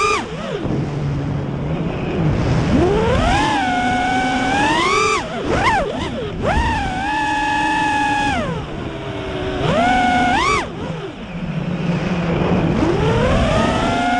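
FPV freestyle miniquad's brushless motors and propellers whining, the pitch climbing sharply with each throttle punch, holding briefly, then dropping back, about five times.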